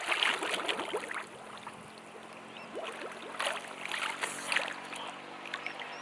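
Water splashing in irregular bursts as soap lather is rinsed off a face by hand.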